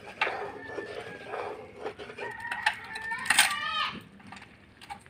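A rooster crowing once, a long call starting about two seconds in.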